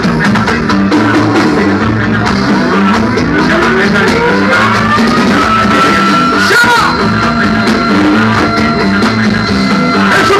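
Live band music played loud through a trio elétrico sound truck's speakers, with a steady repeating beat. A melody line slides up in pitch, then holds a long note.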